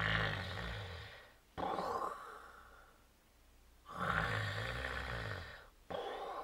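A person snoring: two long, low, rattling snores about four seconds apart, each followed by a breathy exhale.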